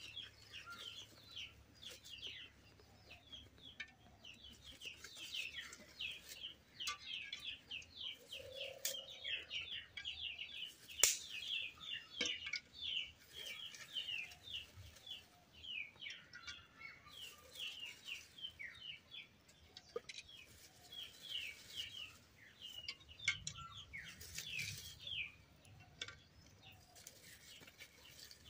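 Small birds chirping all through, in many quick downward chirps, with a single sharp click about eleven seconds in.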